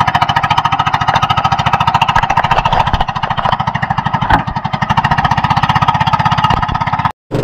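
Engine of a motorized outrigger boat running steadily at cruising speed, a rapid, even putter, with a single sharp knock about four seconds in. The sound cuts off abruptly near the end.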